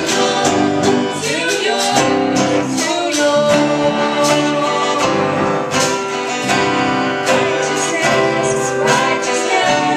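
A small worship band playing live: a woman singing the melody over acoustic guitar, electric guitar and bass guitar, with steady strummed and struck beats and no break.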